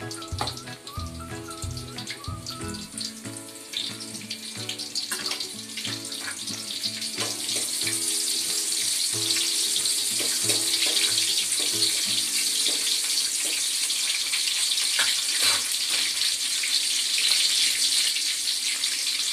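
Onion frying in hot oil: a sizzle that grows louder about seven seconds in and then goes on steadily, with a few knocks in the pan in the first half.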